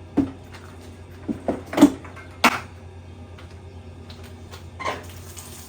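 About six sharp knocks and clunks at uneven intervals, the loudest about two and a half seconds in, over a steady low hum.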